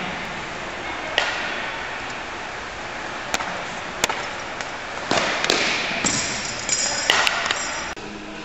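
Weight-throw practice: a few sharp knocks, then about two seconds of clattering and scraping knocks past the middle, all echoing in a large hall.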